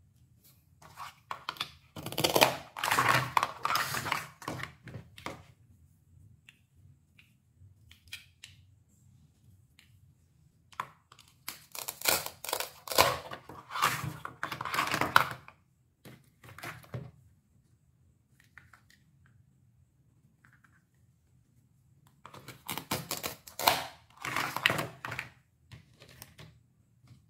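Plastic toy fruit and vegetables being handled and cut apart with a plastic toy knife on a plastic cutting board. Their Velcro-joined halves tear and crackle in three spells of rapid clicking, with plastic pieces knocking together.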